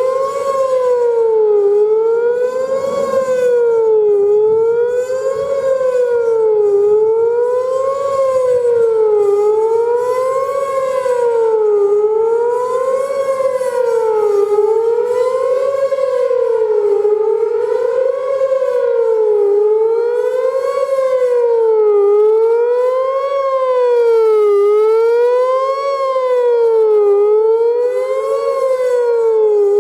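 Whelen WPS-4004 electronic outdoor warning siren sounding its fast wail: a loud tone sweeping up and down about once every two seconds, with heavy echoes.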